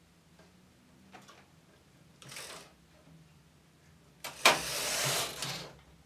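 Knitting machine carriage sliding along the metal needle bed: a short swish about two seconds in, then a louder pass of about a second and a half that opens with a sharp click.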